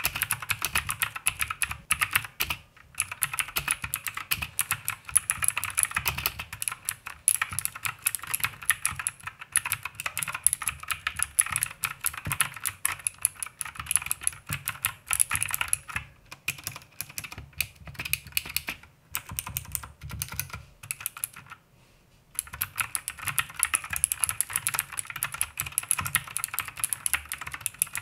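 Fast continuous typing on a small mechanical keyboard with clicky blue switches (Gateron blues), a dense clatter of key clicks with short pauses between bursts.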